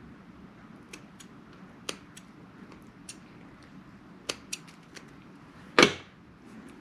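Scissors snipping and handling a multi-conductor cable while its foil shield and wraps are cut away: a handful of short, sharp snips and clicks, with one much louder clack near the end.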